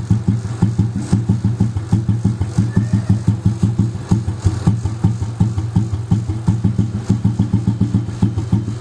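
Single-cylinder four-stroke engine of a 1959 Royal Enfield Bullet 350 idling steadily, with an even, slow beat of about four to five thumps a second.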